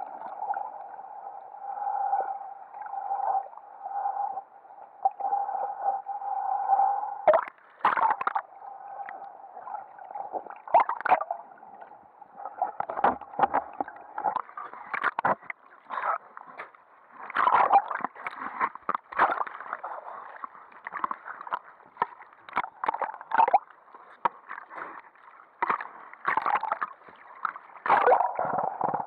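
Water sounds around an underwater camera: a steady hum for about the first seven seconds, then repeated splashing and sloshing as the camera moves at and through the surface.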